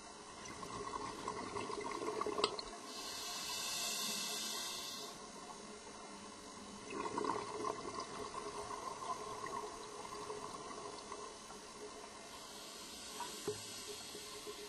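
Scuba diver's open-circuit breathing heard underwater: a gurgle of exhaled bubbles, a smooth regulator hiss on the inhale about three to five seconds in, then another burst of exhaled bubbles around seven seconds in and a fainter inhale hiss near the end.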